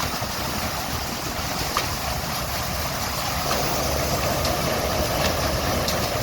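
Engines of vintage farm machinery running steadily, with a low pulsing rumble that grows a little louder about halfway through. Wind noise on the microphone adds a rushing hiss.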